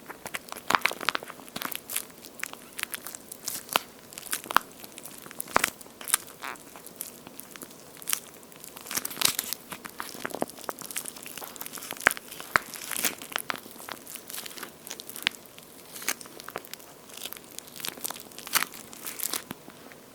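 Charcoal-toast-shaped squishy squeeze toy with a watery gel feel being squeezed and handled close to the microphone, giving dense, irregular sticky crackles and clicks that start and stop abruptly.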